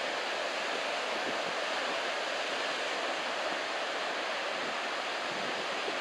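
Surf breaking on a sandy beach: a steady, even wash of white water.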